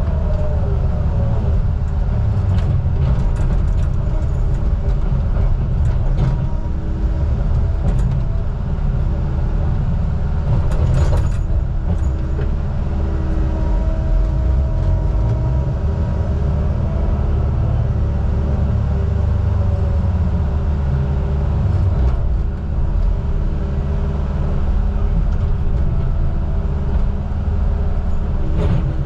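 Heavy diesel engine of logging equipment running steadily with a deep rumble, its pitch drifting slightly. A brief metallic clank comes about eleven seconds in.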